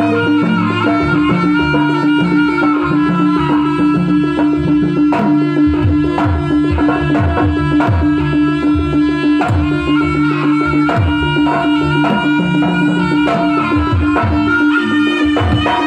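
Live Javanese jaranan gamelan music: bronze kettle gongs struck in a running pattern and kendang drum strokes, under a reedy terompet (shawm) melody over a steady drone.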